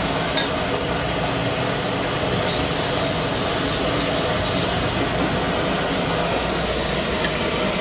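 Connecting rod honing machine running, its spinning mandrel and stone grinding inside the big end of a Molnar H-beam connecting rod held on it: a steady, even grinding noise as the bore is sized toward its final clearance.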